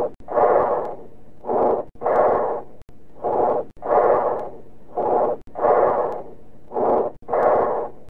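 Bronchial breath sounds through a stethoscope: harsh, blowing breaths, each a shorter inspiration, a brief pause, then a longer expiration, about one breath every second and a half to two seconds. This is bronchial breathing, the kind heard over consolidated lung.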